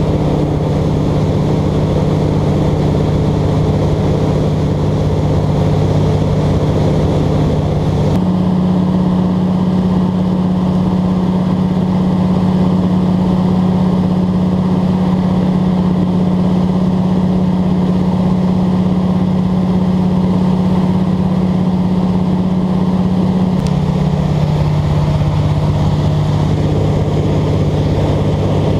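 Single-engine light aircraft in flight: the engine and propeller running steadily at cruise with rushing wind. The steady pitch of the drone shifts suddenly about eight seconds in and again near the end.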